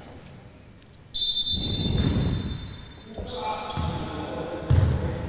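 A referee's whistle gives one long, steady, high blast starting about a second in, as play resumes after a timeout. Voices and a few basketball bounces on the court follow.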